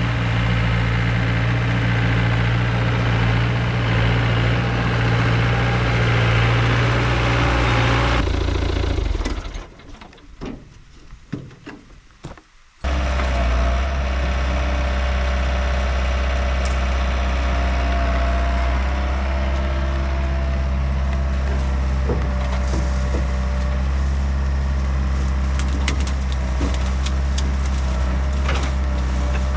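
Diesel engine of a compact excavator or crawler dumper running steadily under load. It drops away about eight seconds in to a few quieter seconds of scattered clicks, then comes back suddenly at a lower, steady pitch. Wood cracks and splinters now and then during the second half.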